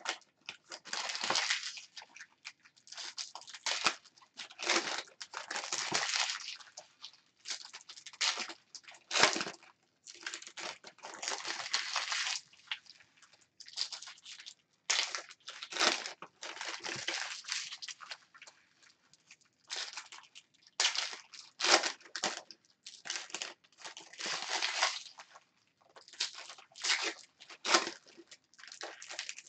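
Foil trading-card pack wrappers being torn open and crinkled by hand, in a run of irregular rustling bursts.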